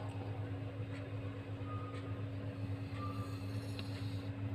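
A steady low hum with a fainter, higher steady tone over it, unchanging throughout, and a few faint ticks.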